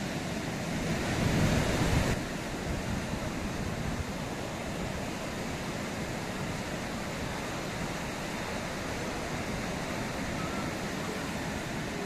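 Beach ambience: surf washing onto the shore with wind rushing on the microphone. A louder surge in the first two seconds cuts off abruptly.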